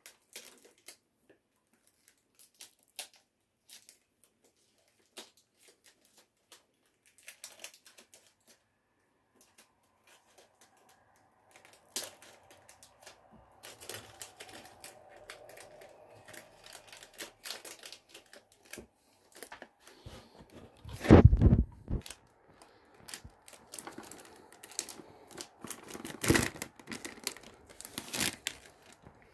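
Clear cellophane wrap on a perfume box crinkling and tearing as it is peeled off by hand, with sparse faint clicks at first and denser crinkling later. One loud thump comes about two-thirds of the way in.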